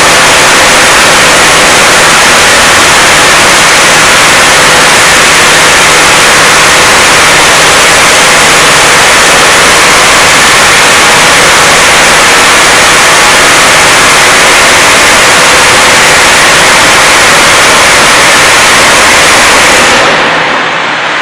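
Blastrac floor milling machine running under load: a loud, steady, dense noise with a faint even motor hum underneath. The sound drops and turns duller about a second before the end.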